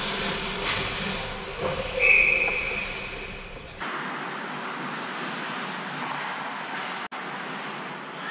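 Ice hockey referee's whistle blown once, a single steady shrill tone lasting about two seconds, following a sharp knock of stick or puck about a second in. After an abrupt cut near the middle, steady hollow rink noise.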